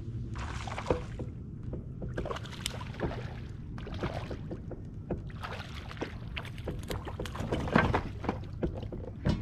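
Water sloshing and splashing around a kayak, with repeated knocks and clatter against the hull and gear.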